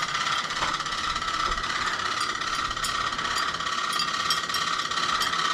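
A large electric fan running: a steady drone with a fast, even rattling pulse.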